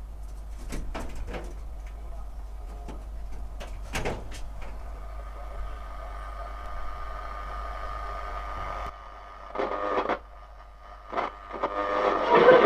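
A 1941 Fisk Radiola valve radio being tuned: a steady mains hum with scratchy crackles and clicks as the dial moves, then a weak station fading in and swelling loud near the end. The reception is weak because the set is still running on a reduced voltage of about 190–200 volts.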